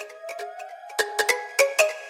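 Background electronic music: short bell-like notes in a quick rhythm, with a tone gliding upward during the first second.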